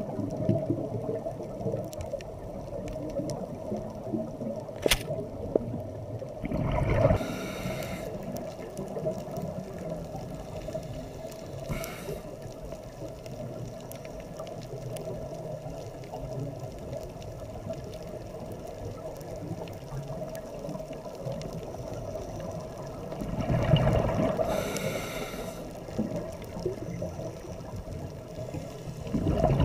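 Underwater sound picked up through a camera housing: a steady low hum, with a diver's exhaled scuba-regulator bubbles gurgling and rumbling past a few times, the longest burst about two-thirds of the way through.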